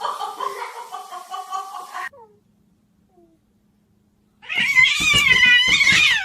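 A cat meowing, cut off abruptly about two seconds in. After a short pause comes one loud, drawn-out yowl with a wavering pitch, running on into the end.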